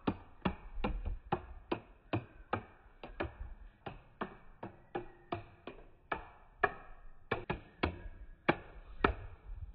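A ball bouncing down a long run of wooden steps on dowel legs, one sharp wooden knock per step at about two or three a second, some knocks ringing briefly with a short tone.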